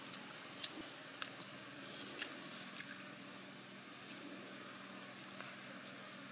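A cat chewing a scrap of boiled chicken, with a few short, sharp clicks in the first two and a half seconds over a faint, steady background.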